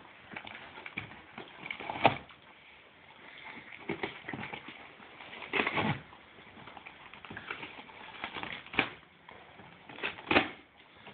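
A dog tearing at a large cardboard box with its teeth: short, irregular bursts of cardboard ripping and scraping, with gaps between them.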